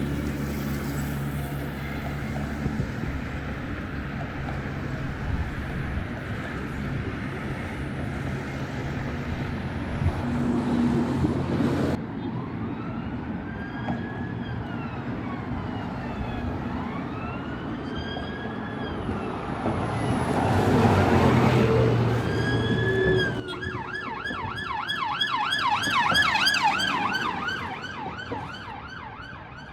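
Road traffic with an engine running, then an emergency vehicle siren: slow rising and falling wail sweeps from about twelve seconds in, switching near the end to a fast yelp, with a vehicle passing loudly in between.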